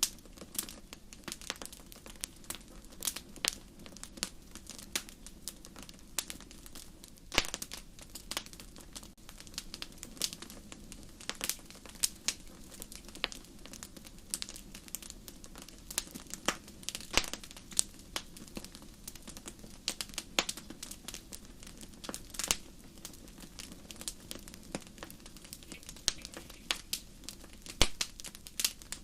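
Fire crackling, with irregular sharp pops over a low, steady rush.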